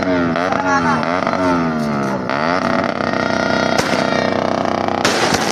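A loud siren-like tone sweeps quickly downward over and over, about three times a second, then holds one steady pitch. Near the end it is cut across by a sudden loud hiss as the first shot of a small-calibre 16-shot fireworks cake fires.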